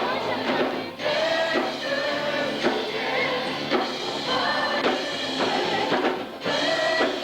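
Church worship music: a group of voices singing over a band with drums.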